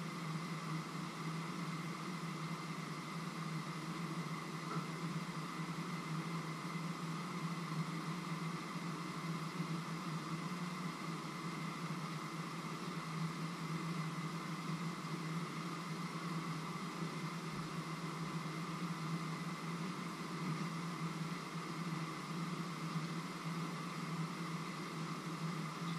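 A steady mechanical hum with an even hiss over it, unchanging throughout.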